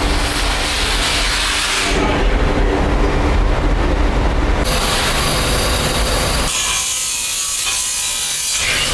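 Loud, steady noise of metalworking machinery making brass pipe, its character changing abruptly several times.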